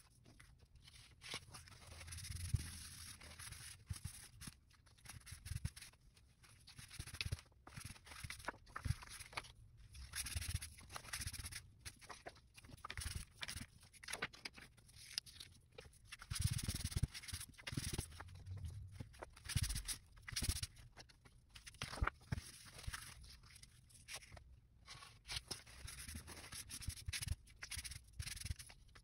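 Irregular paper rustling and rubbing as loose oil-soaked book pages are lifted and shifted, and a tissue wipes excess mineral oil off them, with scattered small taps and handling clicks.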